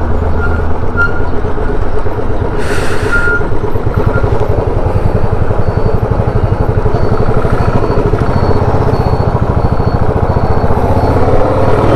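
Single-cylinder engine of a Royal Enfield Standard 350 motorcycle running steadily as the bike rides along, heard from on the bike. A brief burst of hiss comes about three seconds in.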